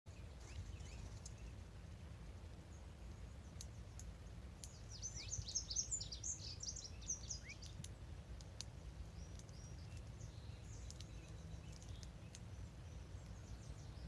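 Wild songbirds calling, with a short burst of rapid, high-pitched song notes about five seconds in and scattered sharp ticks, over a steady low rumble.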